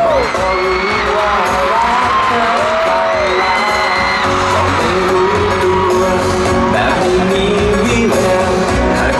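Pop song performed live: a singer's melody over a band with a steady beat.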